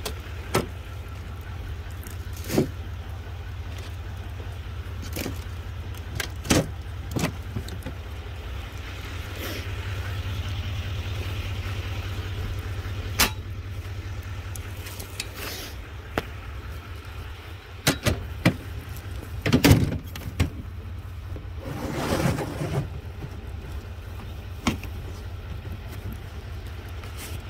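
Plastic storage totes being handled and shifted in the back of a vehicle: scattered sharp knocks, and a busier run of bumping and rustling a little after halfway. Under it runs a steady low hum.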